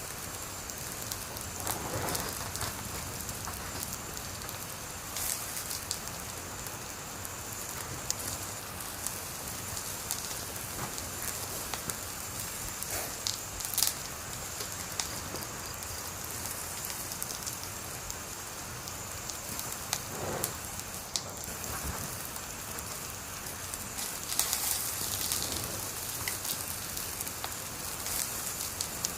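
Wood fire burning with a steady hiss and constant crackling, with a louder sharp pop about halfway through and a brief flurry of crackles a few seconds before the end.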